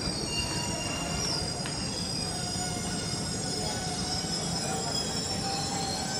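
Broad-gauge train rolling past with a steady running rumble and high-pitched wheel squeal from the rails.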